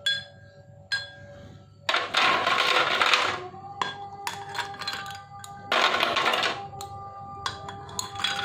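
A metal spoon scooping ice cubes from a plastic tub and dropping them into a glass of milk. Ice clatters and clinks against spoon, tub and glass, with two longer scraping rattles, one about two seconds in and one about six seconds in, and sharp clicks between them.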